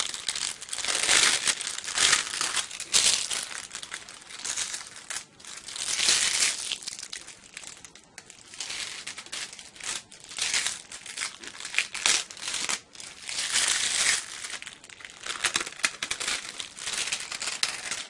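Thin plastic sheets crinkling in irregular bursts as the cover sheet and the heat transfer vinyl's carrier sheets are handled and peeled off a freshly pressed design.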